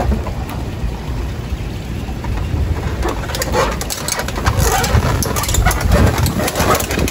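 Wind buffeting the microphone: a gusty low rumble throughout, with a run of crackles and rustles from about three seconds in.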